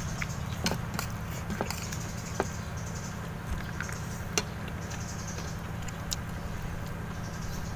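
Eating at a table: scattered light clicks and taps of a spoon and fingers on plates, over a steady low hum.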